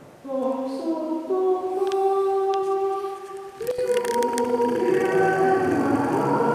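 Church music as Mass closes: held, steady chords that change pitch step by step, joined by singing voices that fill out the sound from about four seconds in.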